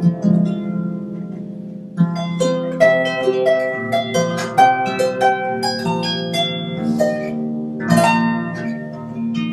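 Celtic harp music: plucked notes ringing over sustained bass notes. A quick run of notes begins about two seconds in, and a strong chord is struck near the end.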